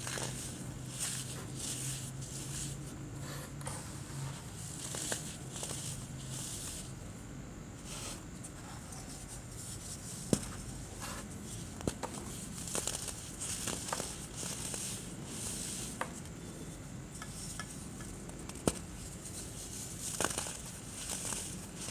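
Clumps of white baking soda being crushed, crunching and crackling in uneven bursts with a few sharp cracks.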